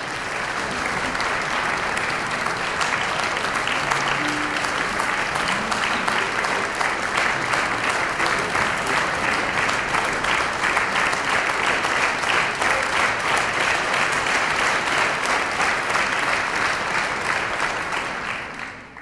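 Concert-hall audience applauding: dense, even clapping that swells up in the first second and dies away near the end.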